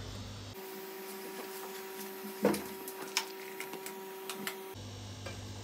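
Steady electrical hum with a few scattered light clicks and one louder knock about halfway through.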